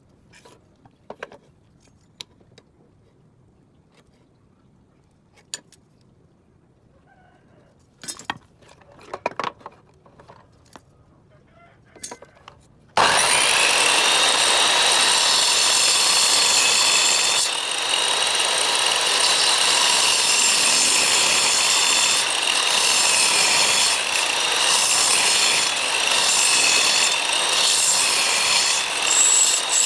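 A few light knocks and clicks of handling wood, then about halfway through an electric power tool cuts in suddenly and runs steadily against wood: a loud rasping noise with a high whine.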